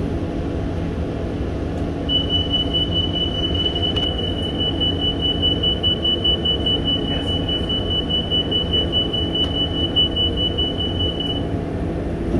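High electronic warning beeper on a New Flyer C40LFR transit bus, one pitch pulsing rapidly, starting about two seconds in and stopping near the end, over the low steady rumble of the bus.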